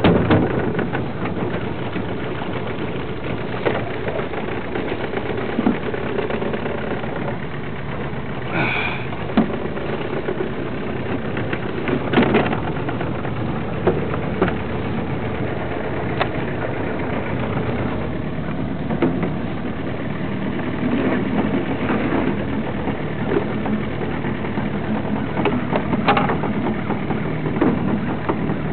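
Small boat motor running steadily, with a few sharp knocks over it.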